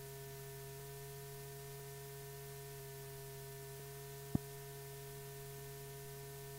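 Steady electrical hum with a faint even hiss from an old film soundtrack, with one sharp click a little over four seconds in.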